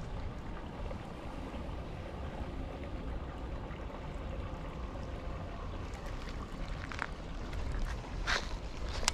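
Steady outdoor rumble and hiss of wind on the microphone, with a couple of short clicks or rustles in the last two seconds.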